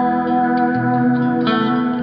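Live band music in an instrumental stretch led by guitar, with sustained notes and a fresh strummed chord about one and a half seconds in.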